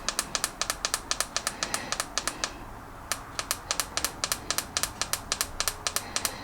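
Portable cordless tire inflator running and pumping up pressure, heard as an even rapid clicking of about six clicks a second over a faint low hum, with a brief break about two and a half seconds in.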